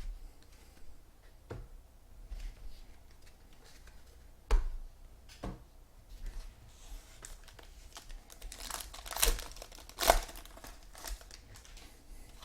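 Foil trading-card pack wrappers crinkling and tearing as packs are ripped open, with a few sharp taps from the cards being handled; the crinkling is densest about nine to ten seconds in.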